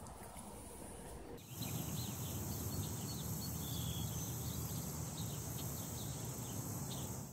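Outdoor field ambience: small birds chirping over a steady low rumble and a high hiss, beginning about a second and a half in after a quieter stretch.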